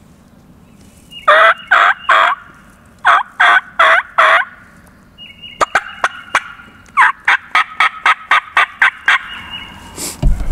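Wild turkey gobbler gobbling hard at close range: several loud gobbles in the first half, then a fast run of about a dozen short, sharp calls. A thump near the end.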